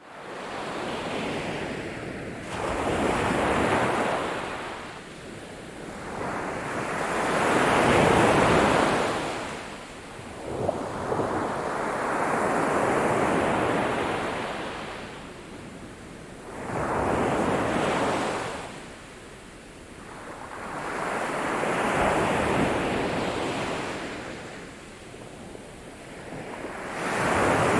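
Sea waves breaking and washing up a sandy shore, the surf swelling and falling away in long surges about every four to five seconds.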